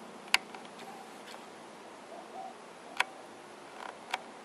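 Three sharp clicks, one shortly in, one about three seconds in and one near the end, the first the loudest, over a faint steady hiss.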